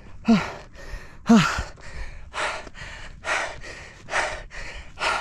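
A person panting hard from the exertion of climbing a steep uphill trail. The first two breaths come out as voiced huffs falling in pitch, followed by steady unvoiced panting at about one breath a second.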